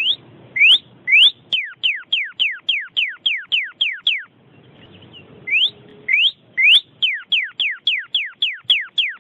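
A songbird's loud whistled song played as a tutor recording for training a young white-rumped shama: each phrase opens with a few rising whistles, then runs into a rapid series of falling whistles, about three a second. The phrase comes twice, with a short pause about halfway through, over a faint background hiss.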